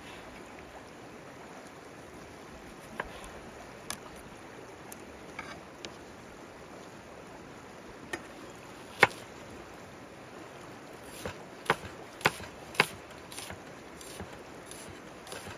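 River flowing steadily, with scattered sharp knocks and taps over it: the loudest about halfway through, and a quick run of four near the end.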